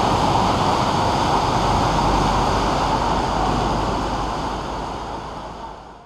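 Steady rushing noise of floodwater running down a city street, fading out over the last couple of seconds.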